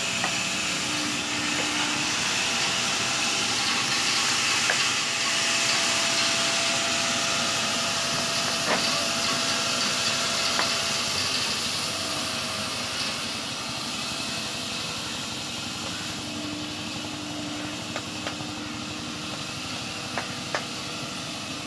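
Steady hissing machine noise of sawmill machinery, with faint whines coming and going and a few sharp knocks of wood.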